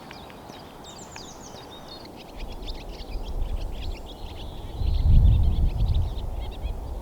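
Small songbirds singing in quick high trills and chirps. From about two seconds in, a low rumble of wind buffets the microphone and is loudest around five seconds in.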